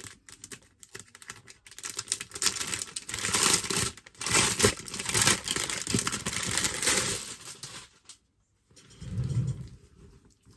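Packaging crinkling, rustling and tearing in hands as a t-shirt is unwrapped and unfolded, in irregular bursts that stop abruptly about eight seconds in, followed by a soft low thump.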